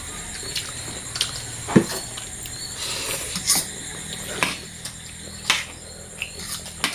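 Eating noises at a shared meal: cutlery and plates clinking and knocking now and then, about half a dozen short taps, the loudest a little under two seconds in, over a steady low hum.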